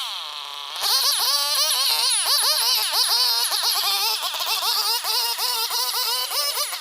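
Stihl two-stroke chainsaw running at high revs, its whine wavering up and down in pitch as the load changes. Right at the start the revs fall away briefly, then pick up again under a second in.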